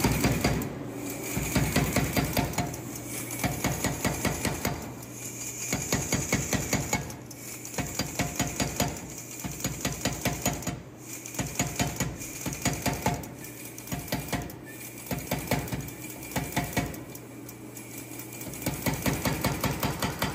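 Shop-built 30-pound pneumatic power hammer (Bulldog 30 utility air hammer design) hitting very fast on a red-hot steel bar. The blows come in rapid runs a second or two long, with short pauses between.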